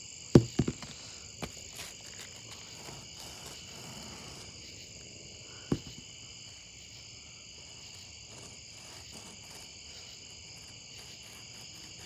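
Steady chorus of chirring insects, likely crickets, held on a few high even pitches. A cluster of sharp knocks about half a second in and a single knock near six seconds stand out as the loudest sounds.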